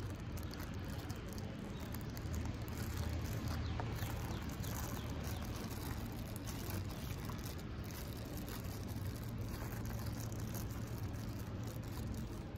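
Thin plastic bags crinkling and rustling as sticky rice and grilled pork skewers are handled, in many small scattered crackles over a steady low hum.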